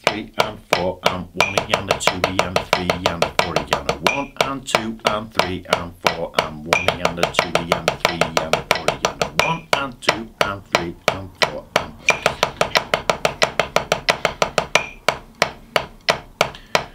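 Drumsticks striking a rubber drum practice pad in a single stroke roll, right-left alternating, switching every couple of seconds between eighth notes (about three hits a second) and sixteenth notes (about six hits a second) at 90 BPM.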